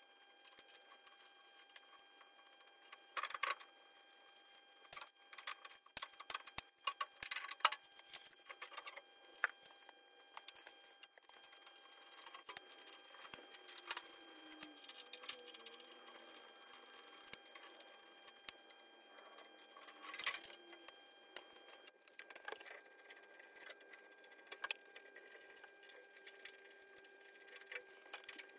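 Faint scattered clicks, taps and clinks of hand tools on metal as body panels and a radiator are taken off a small vintage car, over a faint steady hum.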